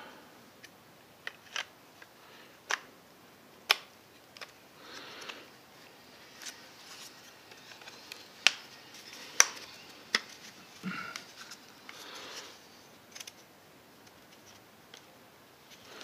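Scattered sharp plastic clicks and taps with soft rubbing in between, the loudest clicks about halfway through, as a magnifier lens is worked into its holder on a welding helmet's auto-darkening filter cartridge.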